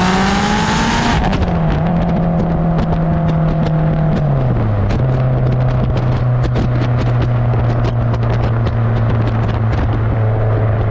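Turbocharged Subaru STI engine revving up under a loud hiss, then lifting off sharply about a second in. It settles to a steady low running note that drops lower again around four seconds in, with many scattered sharp crackles over it.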